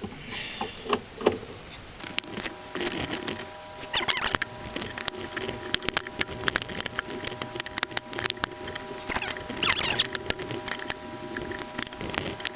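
Hand tools and small metal parts clicking and scraping irregularly as a nut on the purge valve solenoid bracket is worked loose under the hood.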